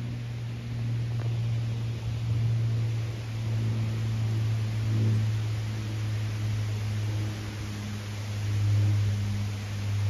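A steady low engine hum that swells and fades gently in loudness, over an even background hiss.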